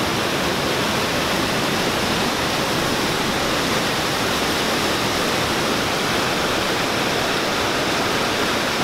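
Ladder Creek's whitewater rushing fast over rocks: a steady, loud wash of falling water that does not let up.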